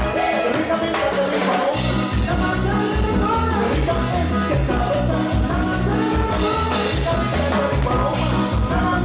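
Latin dance music with a steady beat, bass and drums, played loud.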